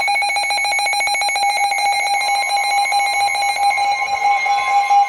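Weather-radio alert alarm: a loud, rapidly pulsing electronic tone, with a second steady tone joining about two seconds in. It signals that a new severe thunderstorm warning is about to be broadcast.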